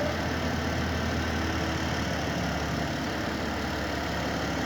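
Engine idling steadily, an even low hum with no change in speed.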